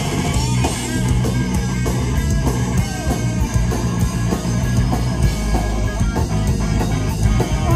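Punk rock band playing live and loud: distorted electric guitar over bass guitar.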